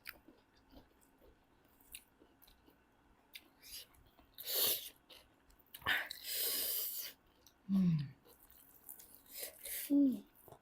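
People chewing food up close, with soft mouth clicks and smacks. Two loud breathy hisses come around the middle, and two short hummed sounds falling in pitch come near the end.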